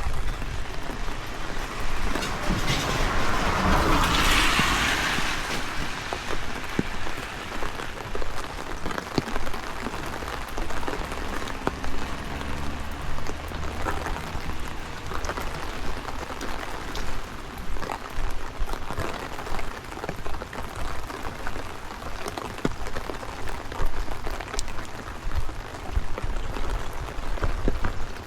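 Steady rain falling, with close raindrops ticking sharply throughout and wind rumbling at the microphone. A louder rushing swell comes about three to five seconds in.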